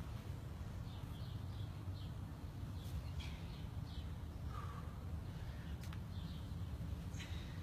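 Birds chirping in short, scattered calls over a steady low background hum.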